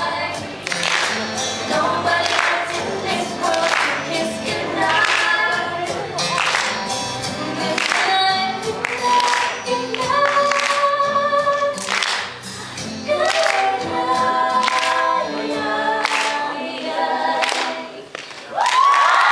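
Several girls singing together into handheld microphones through a PA, over backing music with a regular beat. Near the end the audience breaks into loud cheering.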